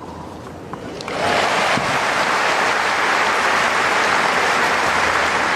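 A sharp knock about a second in, then a crowd breaks into steady applause that continues.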